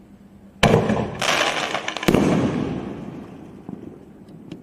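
Reloadable aerial firework shells from the Super Fireworks 'Release the Kraken' kit going off: two loud bangs about a second and a half apart, the first just after half a second in. The sound dies away over the next couple of seconds.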